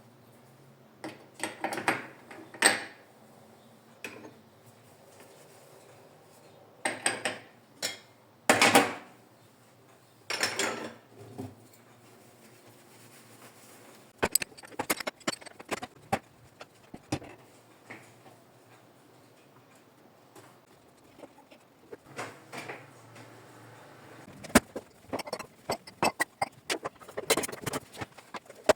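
Dishes and utensils being handled in a kitchen, with irregular clinks and knocks and a few short spells of rubbing or handling noise. The clinks come thicker near the end.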